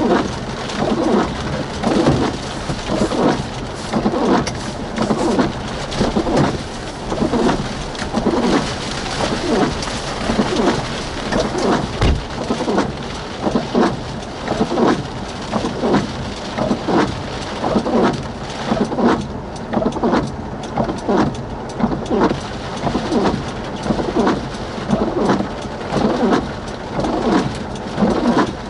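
Rain on a vehicle, with a regular pulsing sound about once a second that runs throughout, and one low thump about twelve seconds in.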